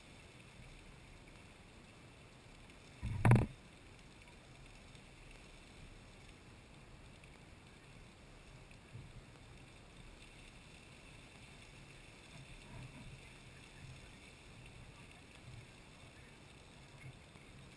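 Lady Knox Geyser erupting, its water column heard as a faint, steady rush of spray. About three seconds in there is a single short, loud thump.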